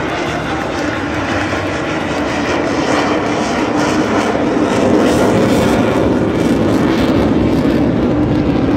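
Engine noise of a single jet aircraft flying a display pass, a steady rushing noise with a low hum, growing a little louder about five seconds in.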